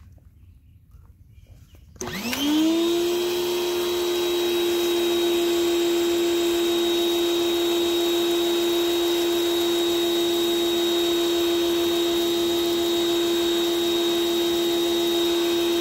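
Sun Joe electric pressure washer's motor and pump starting when the spray-gun trigger is pulled, about two seconds in. The sound rises quickly to a steady whine that holds while the soap nozzle sprays. The pump runs only while the trigger is held and is silent otherwise.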